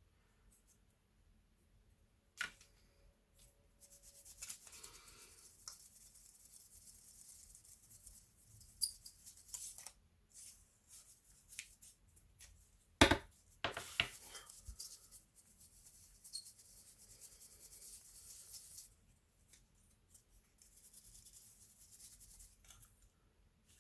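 Close handling noise of laptop repair work: stretches of light rubbing or brushing on parts, broken by small clicks and taps, the sharpest a hard click about 13 seconds in.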